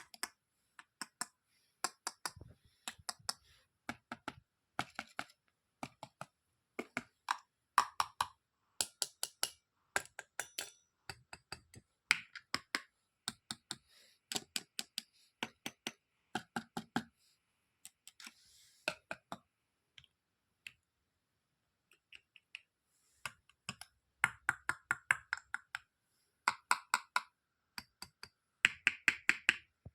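Small toy kitchen pieces being handled and set down: a run of sharp clicks and taps in little clusters, with short silent gaps between.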